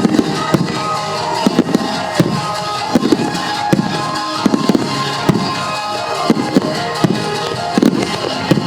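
Aerial fireworks bursting in quick succession, loud bangs every half second to a second with booming tails, over music playing.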